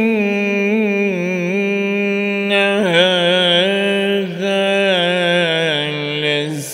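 A man's solo voice chanting Quran recitation in melodic tajwid style, drawing out long held notes with wavering ornaments and starting a new phrase about three seconds in.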